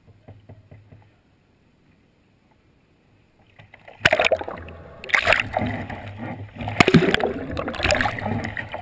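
A kayak capsizing into pool water about four seconds in: a sudden splash, then churning, gurgling water in several loud surges as the boat is upside down during a forward-ending Eskimo roll, heard through a deck-mounted microphone that goes under the surface.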